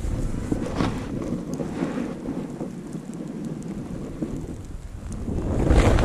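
Snowboard sliding through fresh powder, a hiss of snow under the board, with wind rumbling on the microphone. The rumble dies down in the middle and swells again near the end.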